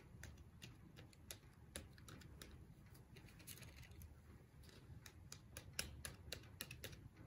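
Faint, irregular light taps of a palette knife's edge stamping wet paint onto paper, with the knife dipped into paint on the palette between taps.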